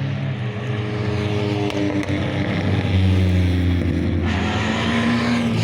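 Rally car engine running hard, its pitch climbing and dropping through gear changes, getting louder and rougher in the last second or so as it comes closer.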